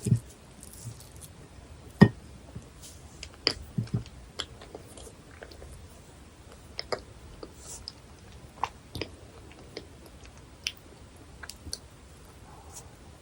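Close-miked chewing of dense, fudgy cheesecake: soft wet mouth sounds with scattered sharp clicks. The loudest click comes about two seconds in, a cluster follows around four seconds, and the clicks grow sparser after that.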